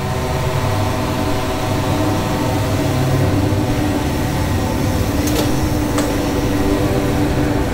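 Race car engine noise, steady and mechanical, with two sharp clicks about five and six seconds in.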